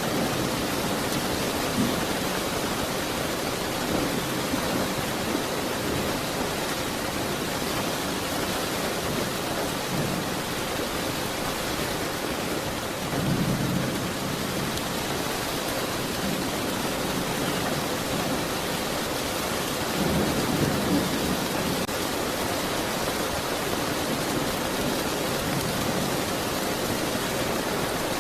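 Steady heavy rain, with low rumbles of distant thunder swelling briefly about halfway through and again about two-thirds of the way in.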